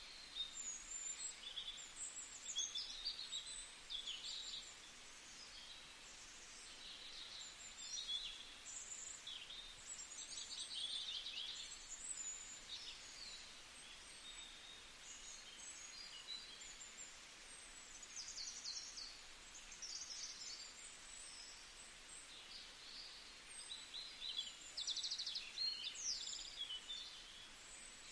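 Small birds chirping and twittering in quick, high, scattered calls over a faint steady hiss.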